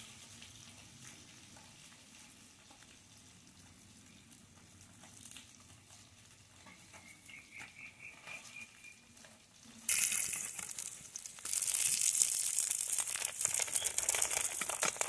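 Rohu fish pieces frying in hot oil in a metal kadai over a wood fire. It is faint at first; about ten seconds in, a loud, crackling sizzle starts abruptly and carries on.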